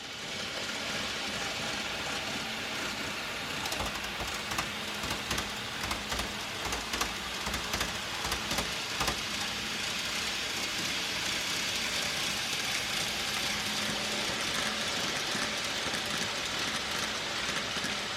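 N gauge model train running on track: a steady rolling rush with scattered small clicks and a faint steady hum.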